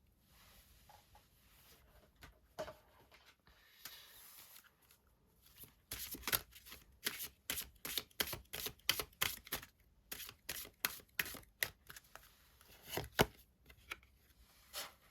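Tarot cards being shuffled and handled: a quick run of sharp card snaps, about three a second, starting some six seconds in, then a few single snaps near the end.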